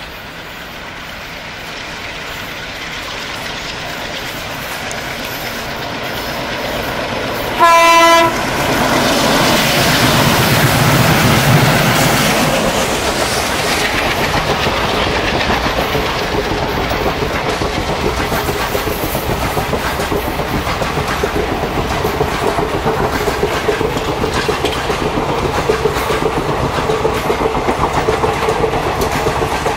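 Twin Alco WDM-class diesel locomotives approaching on the adjacent track, sounding one short horn blast about eight seconds in. Their engines pass with a low rumble, then the coaches clatter past with a steady clickety-clack.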